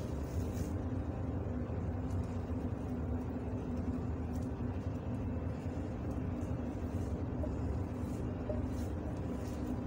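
Steady low mechanical hum, even in level, with a few faint level tones running through it.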